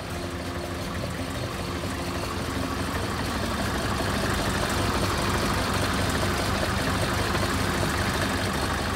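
Hino Ranger truck's diesel engine idling steadily, growing louder about halfway through as the underside and exhaust come close.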